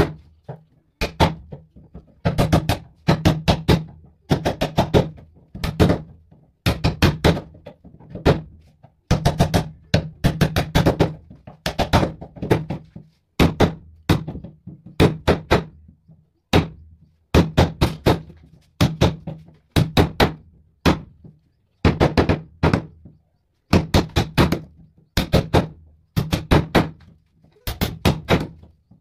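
Wood chisel being struck to chop square notches into a clamped hardwood board. Sharp knocks come in quick runs of several blows, each run followed by a short pause, and the board rings low with each blow.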